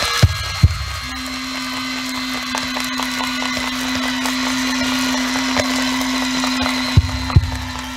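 Experimental music played on vegetable instruments: a steady low drone held from about a second in, over dense clicking noise. Two deep thumps sound just after the start and two more near the end.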